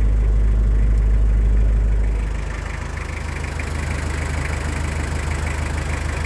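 A pickup truck's engine idling. About two seconds in, the deep rumble drops away and a lighter, steady engine sound with some hiss carries on.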